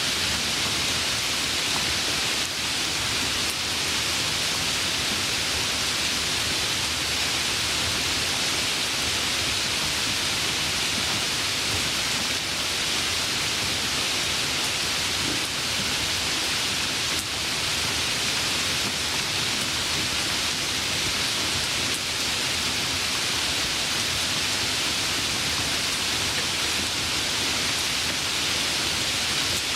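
Light rain falling: a steady, even hiss with no thunder.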